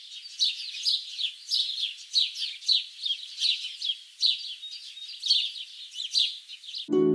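Birds chirping: a steady run of short, high, downward-sweeping chirps about twice a second. Plucked-string music comes in just before the end.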